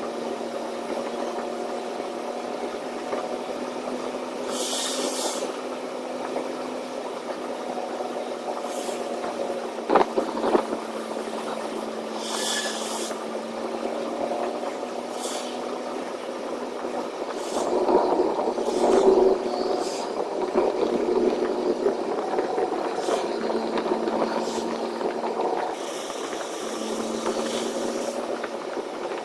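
Semi-truck engine running steadily at highway speed, heard from inside the cab, with rattles. There are two short hissing bursts, a sharp knock about a third of the way in, and a louder rough stretch a little past the middle.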